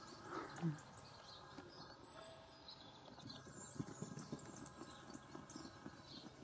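Quiet outdoor background with faint bird chirps and a run of soft taps and rustles from Bengal kittens scampering and pouncing on artificial grass, busiest in the second half.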